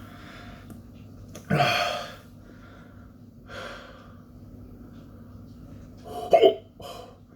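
A man hiccuping and breathing hard, with two loud, sudden hiccups, one about a second and a half in and one near the end, and softer breaths between. The hiccups are brought on by the burn of a superhot chili pepper he has just eaten.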